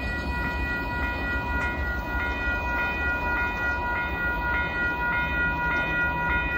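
Level-crossing warning bell ringing in a steady series of strikes, a little under two a second, as the gate arms rise once the train has cleared. A low rumble from the departing freight train lies underneath.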